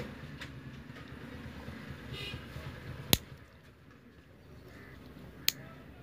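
Sharp clicks of a two-way light switch being toggled: a loud click about three seconds in and a fainter one near the end.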